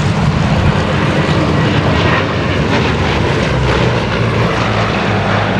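Bristol Blenheim's twin Bristol Mercury nine-cylinder radial engines running with a steady, loud propeller drone and a low throb.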